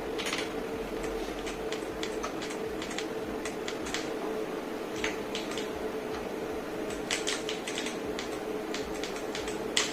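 Akko 5075S mechanical keyboard keys clacking irregularly under gameplay presses, single strokes and quick clusters of several, over a steady low hum.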